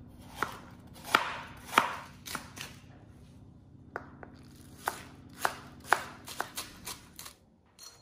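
Stein Diamond knife slicing a wedge of raw cabbage into shreds on a plastic cutting board: about fourteen crisp chops at an uneven pace, stopping shortly before the end.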